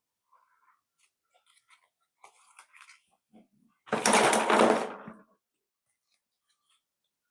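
Small plastic construction-kit parts being handled with light clicks, then a loud rattle of loose parts for about a second, midway through.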